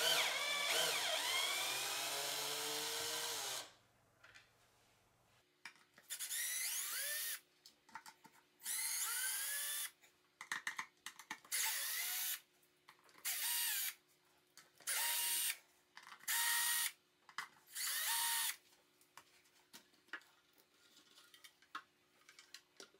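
Cordless drill/driver backing out the screws that hold the amplifier plate into the subwoofer's rear panel. It starts with one long run of about three and a half seconds, then gives seven shorter bursts of about a second each. Each burst rises in pitch as the motor spins up.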